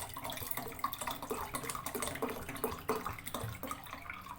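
Water running into a cooking pot, with irregular splashes, dying down near the end.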